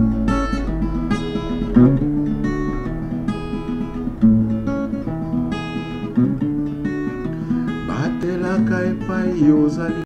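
Acoustic guitar strummed and picked in a steady chord accompaniment to a traditional Congolese song, with a fresh strum every second or two.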